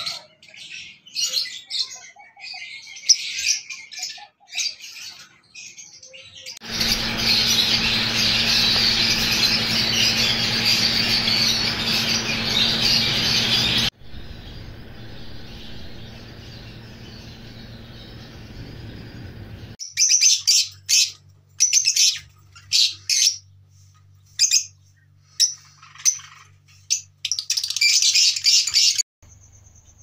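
Caged parrots, ringneck parakeets and lovebirds, chirping and squawking in short sharp bursts. In the middle there is a stretch of dense, continuous chatter, as from a crowded cage.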